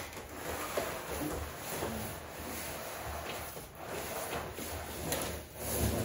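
Cardboard packing box scraping and rubbing as it is slid up off a refrigerator, with small knocks of the cardboard.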